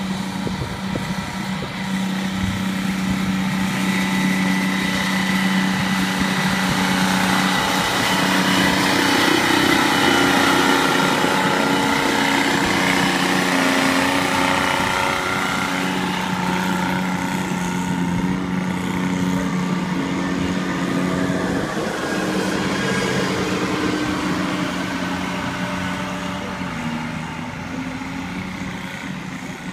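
Three-cylinder turbo diesel engine of a modified Cub Cadet garden pulling tractor running hard under load as it drags a weight-transfer sled. The engine note grows louder to a peak about ten seconds in, then fades as the tractor moves off down the track, dropping slightly in pitch near the end.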